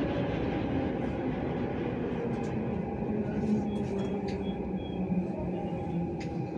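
JR Yamanote Line E235-series electric train running, heard from inside the carriage: a steady rumble of wheels on rail with a low motor hum that falls a little in pitch.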